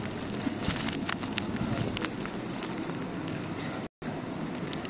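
Restaurant dining-room background noise: a steady hiss with scattered light clicks and clinks. The sound cuts out for an instant near the end.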